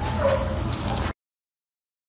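A small dog giving a brief whining yip over rustling background noise, then dead silence about a second in as the audio cuts out.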